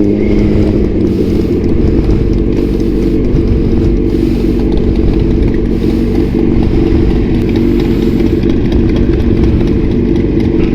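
Motorcycle with an Austin Racing aftermarket exhaust running loud on the road, its engine note easing down at the start and then holding steady.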